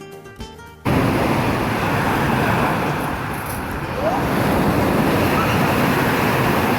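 A song with guitar cuts off abruptly about a second in, replaced by loud, steady outdoor rushing noise with a deep rumble.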